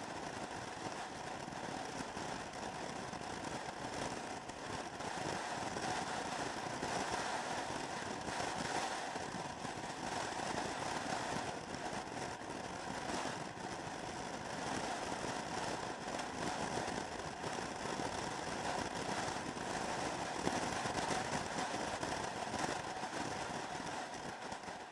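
Motor scooter engine running steadily at cruising speed, with wind rushing over the onboard camera; the level swells and eases gently.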